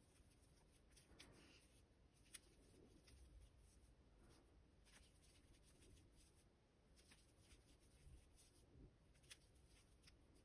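Near silence with faint scattered ticks and light rustling from a metal crochet hook working cotton-acrylic yarn; the clearest tick comes about two seconds in.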